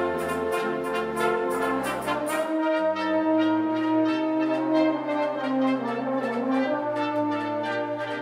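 Concert wind band playing live with the brass to the fore: trombones, trumpets and horns hold sustained chords. About two and a half seconds in, the deep bass notes and the high shimmering percussion drop away, leaving the held brass chords.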